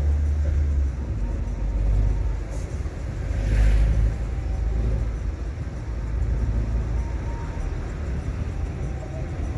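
Car being driven: low engine and road rumble that swells and eases, with a short rush of hiss about three and a half seconds in.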